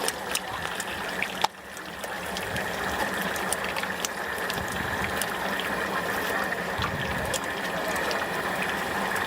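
Tofu deep-frying in hot oil: a steady sizzle with scattered crackles, and one sharp click about a second and a half in, after which the sizzle briefly dips.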